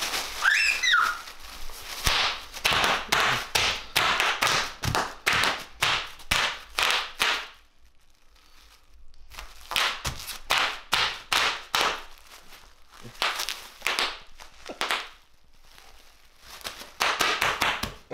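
Bubble wrap crinkling and popping under a small child's hands and feet, in quick runs of sharp pops broken by two short quieter spells.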